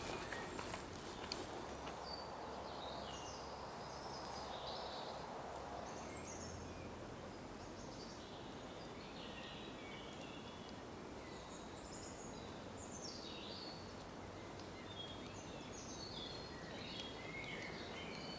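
Woodland birds singing: many short chirps and warbling phrases from several birds over a faint steady background hiss.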